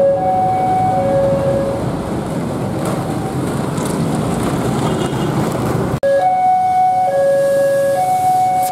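A railway level-crossing alarm sounds two steady tones in turn, low then high, and stops about two seconds in. Motorbike and road traffic noise follows at the open crossing. After a sudden cut about six seconds in, another crossing alarm starts the same alternating two-tone pattern.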